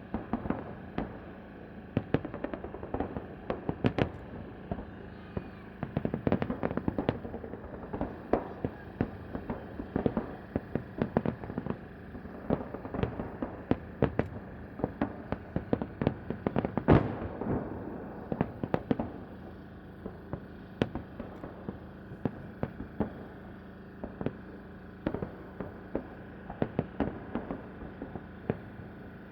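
Fireworks salute: many shell bursts bang in quick, irregular succession, with the loudest single bang about halfway through.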